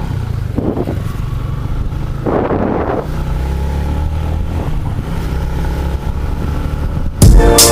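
Yamaha Sniper 150 motorcycle engine running steadily on the road, heard as a low rumble with two brief rushes of noise. Loud music with a strong beat cuts in suddenly near the end.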